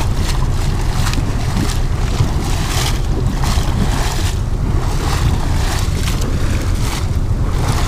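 Wind buffeting the microphone over a steady low rumble from the yacht's Volvo Penta IPS drives, which are working to hold the boat still on dynamic positioning, with water churning along the hull.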